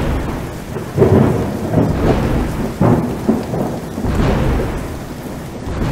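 A thunderstorm: steady heavy rain with rumbles of thunder swelling several times.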